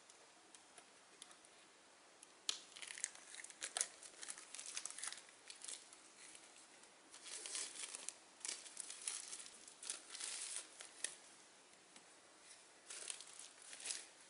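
Clear plastic wrapping crinkling and tearing as it is pulled off rolls of self-adhesive wallpaper, in three spells of crackling separated by short pauses.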